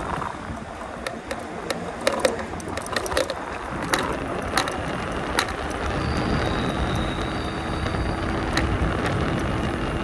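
Taoci Ve7 fat-tyre e-bike being ridden on INNOVA 20x4 tyres: steady wind and road rumble with scattered rattling clicks. A faint steady whine joins in about six seconds in.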